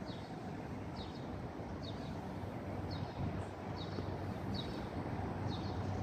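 A bird chirping over and over, a short high chirp about once a second, over a steady low rumble of city traffic.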